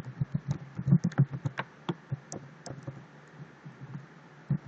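Typing on a computer keyboard: a run of quick, irregular key clicks that thins out in the second half.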